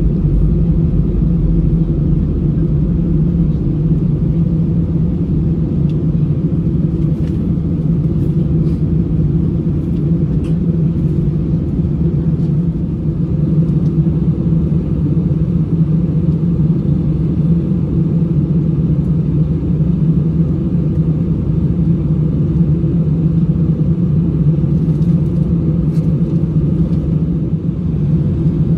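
Airbus A320 cabin noise: the jet's engines and airframe making a steady low rumble, heard from inside the passenger cabin. A few faint clicks come in over it.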